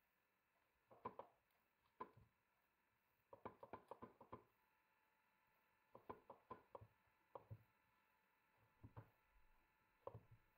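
Faint scraping and clicking of cold butter being grated on a metal box grater set on a silicone mat, coming in short runs of quick strokes a second or two apart.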